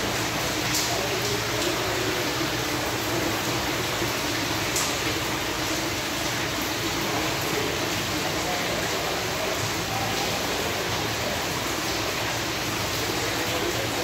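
Indistinct murmur of a crowd's voices over a steady hiss.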